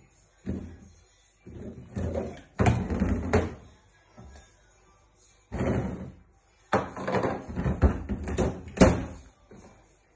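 Several bursts of knocking and clattering as kitchenware is handled, with sharp knocks and bangs from a cupboard and dishes. The sharpest bang comes near the end.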